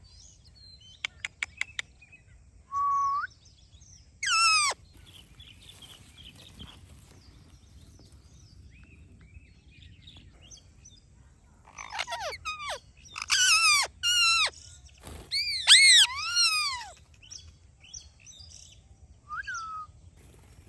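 Parrot calling in short squawks and chirps with pauses between: a few sharp clicks about a second in, a single held call near 3 s and a sweeping call around 4.5 s, then a run of loud rise-and-fall squawks from about 12 to 17 s, and one short call near the end.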